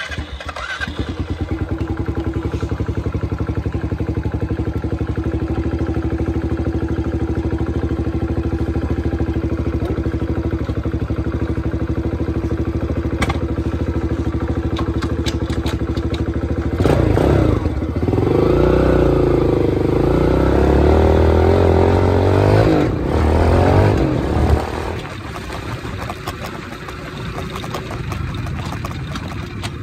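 An engine starts and runs at a steady idle. Past the halfway point it revs up and down several times for several seconds, then settles back to a quieter run.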